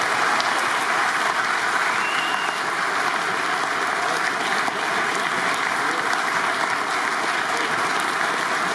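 Audience applauding, a steady sustained clapping.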